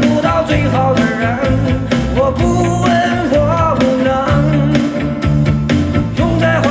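Background pop-rock song with a singer over guitar, bass and a steady beat.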